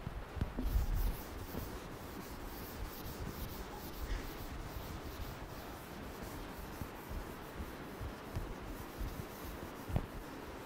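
Chalkboard duster wiping chalk off a chalkboard in quick, repeated back-and-forth strokes, a dry rubbing hiss with each pass.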